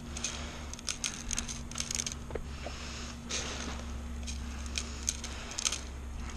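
Irregular small clicks and rattles of an airsoft magazine being handled and reloaded with plastic BBs.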